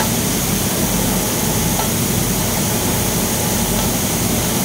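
Steady, loud noise of shipyard machinery: an even rushing din over a low hum, with no breaks or changes.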